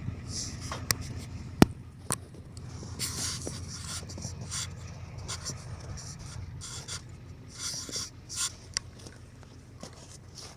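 A low, steady engine hum with scattered sharp clinks and knocks, the loudest about one and a half seconds in. Patches of scraping and rubbing come and go, as tow gear is handled while a vehicle is hooked up.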